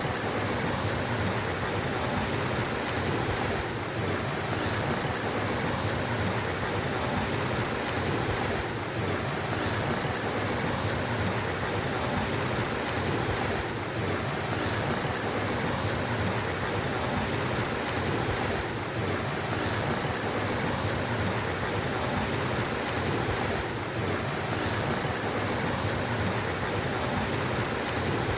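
Flowing water from a mountain stream, a steady, even rushing with a slight dip in level about every five seconds.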